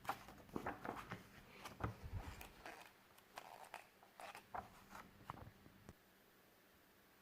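Irregular clicks, taps and crinkling of objects being handled close by, stopping about six seconds in.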